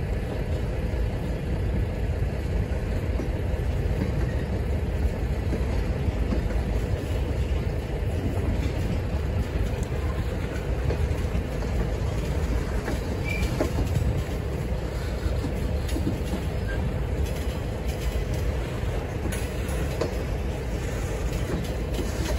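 Freight cars rolling slowly past in a steady rumble of steel wheels on the rails.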